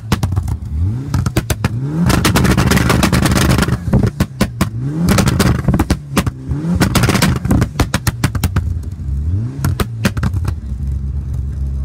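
Mitsubishi Lancer Evo IX FQ340's turbocharged 2.0-litre four-cylinder engine, stationary, revved about five times from idle and held high once for about two seconds, with rapid crackling pops and bangs from the exhaust each time: the anti-lag and launch-control system firing. It drops back to idle between the revs.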